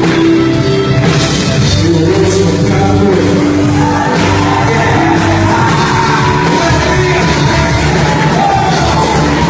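Loud live worship music in a large hall, with singing and shouts and whoops from the congregation.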